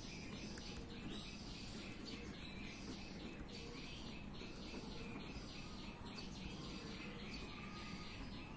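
A pen scratching on notebook paper in short, quick strokes as words are written, over a quiet steady background hum.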